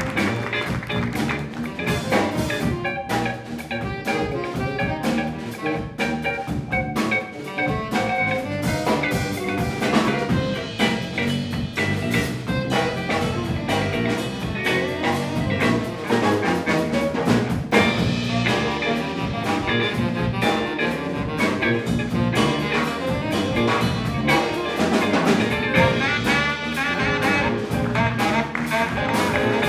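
A jazz ensemble playing live, with drum kit, electric bass and guitar, keyboards and a horn section of saxophones and brass. The band sound grows brighter and fuller about eighteen seconds in.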